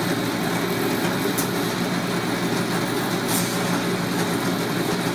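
Milling machine running steadily with an even motor hum, its feed stopped. Two short high ticks come about two seconds apart.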